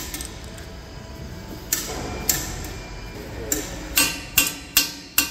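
Hand hammer striking a steel punch held against the dozer's steel frame, sharp metal-on-metal blows. Two lighter knocks come about two seconds in, then four quick, loud blows near the end, about three a second.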